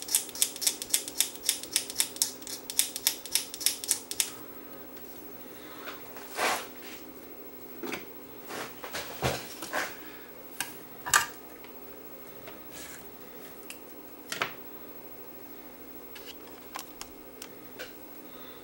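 Scalpel blade scraping a copper trace on a circuit board bare, in quick even strokes about four or five a second, which stop about four seconds in. After that come scattered light clicks and knocks of tools and parts being handled, over a faint steady hum.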